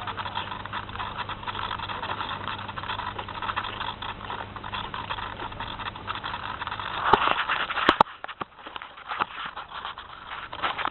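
SpyHawk FPV model plane's motor humming under a steady rush of wind, then two sharp knocks about a second apart, after which the motor hum stops: the sound of the plane hitting the ground.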